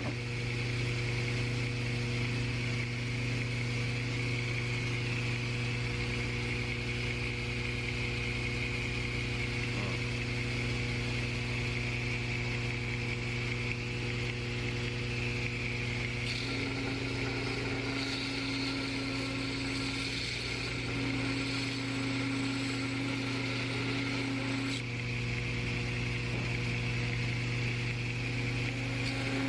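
Belt grinder running with a steady motor hum while a forged steel knife blade is ground against the abrasive belt, giving a continuous grinding hiss. The hiss changes about halfway through and again near the end as the blade is moved on the belt.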